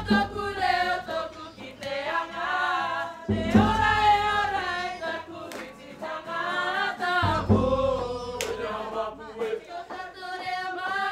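Group of voices singing a Cook Islands song together in long held phrases. A few deep thuds sound underneath, at about three and a half and seven seconds in.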